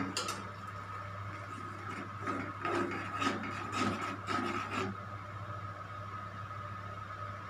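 Steel ladle stirring and scraping thick tomato chutney around a kadhai: a run of rough strokes between about two and five seconds in, over a steady hum.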